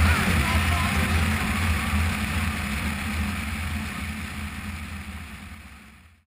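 Biplane's engine droning steadily in flight, with wind rushing over the microphone mounted on the aircraft. The sound fades out gradually and is gone just before the end.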